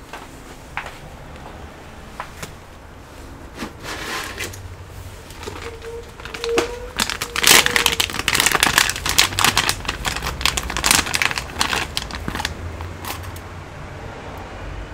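Anti-static plastic bag crinkling and rustling as a laptop RAM module is handled, with scattered clicks at first and the loudest crinkling in the middle.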